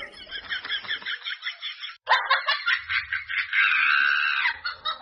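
Bird-like chirping and squawking calls, fast and repeating, with a short break about two seconds in: a comic sound effect laid over a reaction shot.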